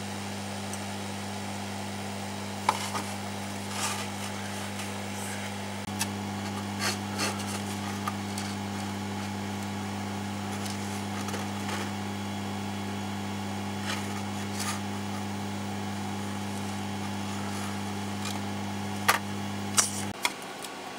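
A steady low electrical hum, with scattered small clicks and taps of tools and electronic components being handled while soldering a kit board. A few sharper clicks come near the end, and the hum cuts off just after them.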